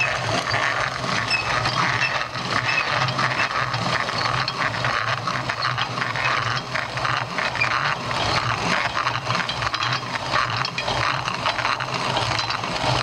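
CS Bell No. 2 hand-crank meal grinder grinding wheat into flour: a steady, gritty crunching of the grinding burrs, with rapid clicks running through it.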